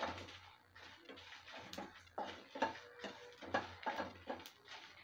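Metal slotted spatula scraping and tapping against a ceramic-coated kadai, stirring whole coriander, cumin, fennel seeds and dried red chillies as they dry-roast without oil. The scrapes and clicks are irregular, a few a second.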